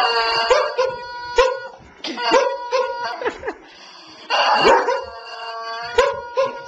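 Squeeze-toy rubber chicken screaming over and over as a greyhound bites and tugs it: several loud shrill squawks, each under a second long, with a few sharp knocks between them.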